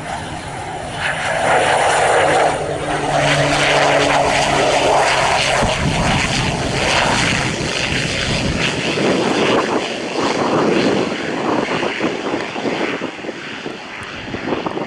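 Pilatus PC-12 NGX single-engine turboprop on landing, its propeller and turbine droning as it passes close by. There is a steady propeller hum for the first few seconds, then a broad rushing engine noise that slowly fades as the aircraft rolls away down the runway.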